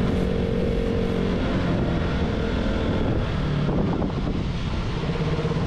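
KTM Duke 200's single-cylinder engine running steadily while the bike rides along, with a rush of wind and road noise. The engine's pitch dips lower about three and a half seconds in, then settles back.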